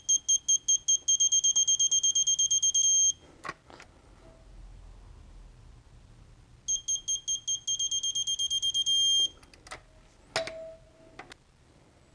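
Eastwood digital torque angle wrench beeping on a cylinder head bolt. The beeps come faster and faster, then merge into a steady tone as the bolt reaches the set 40 N·m. This happens twice, for two bolts. A few sharp metallic clicks of the wrench and socket follow each run.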